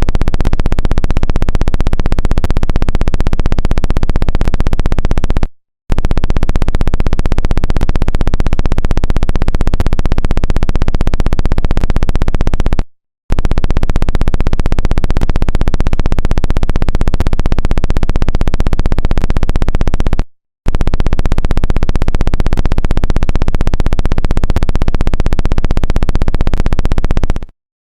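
Emergency alert system alarm: a loud, harsh electronic buzz sounded in four long blasts of about seven seconds each, with brief gaps between them.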